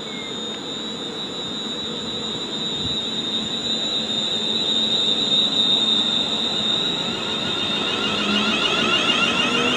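Class 350 Desiro electric multiple unit pulling away from the platform: a steady high whine from its electrical equipment over wheel rumble, growing louder, with the traction motor whine starting to rise in pitch near the end as the train accelerates.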